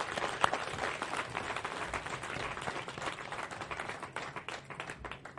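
Audience applause: many hands clapping steadily, thinning out near the end.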